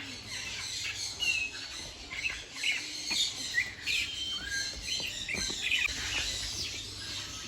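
Captive parrots and other aviary birds calling: many short, high chirps and little whistles overlapping in a busy chatter.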